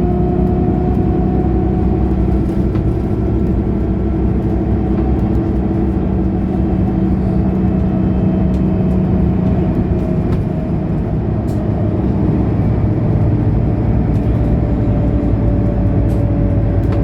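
Mercedes-Benz O530 Citaro Ü bus engine running steadily under way, a constant drone that eases off slightly about ten seconds in before pulling again.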